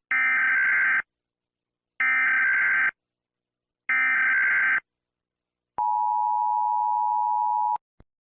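Emergency Alert System digital data tones: three identical buzzy bursts of about a second each, evenly spaced, followed by a steady electronic beep held for about two seconds.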